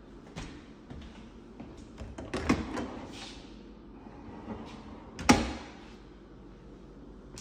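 Built-in dishwasher door pulled open with a clatter of clicks and rattles, then pushed shut with one sharp bang near the end.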